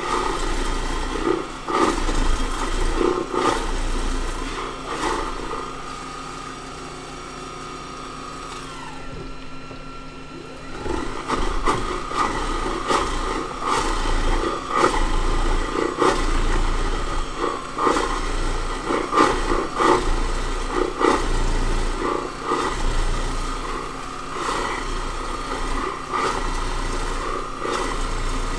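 Sammic vegetable preparation machine running, its motor humming steadily while produce pushed down the feed tube is shredded in uneven bursts. The cutting noise dies down for a few seconds near the middle, then resumes.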